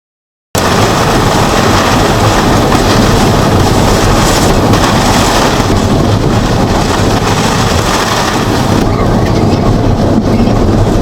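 Hurricane-force wind buffeting the microphone: a loud, steady rushing roar with a heavy low rumble that starts abruptly about half a second in, after dead silence.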